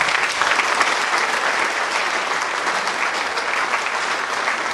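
Audience applauding, a dense and steady clapping of many hands.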